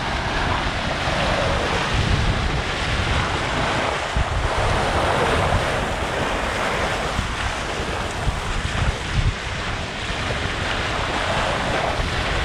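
Bow wave and spray rushing along the hull of a Hallberg-Rassy 54 sailboat sailing fast downwind, swelling and easing every few seconds. Wind buffets the microphone underneath with a low rumble.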